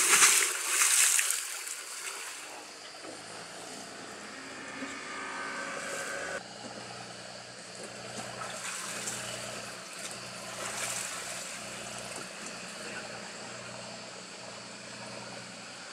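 A boat engine running steadily with a low hum, after a loud rushing noise in the first two seconds.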